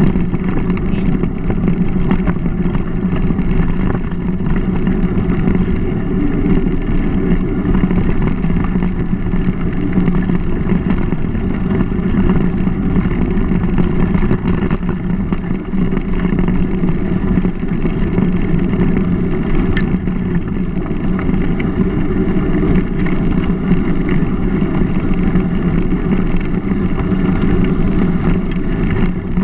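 Steady, loud rumble of a mountain bike rolling along a gravel towpath, picked up by a GoPro on the ride: tyre noise on the gravel mixed with wind on the camera's microphone.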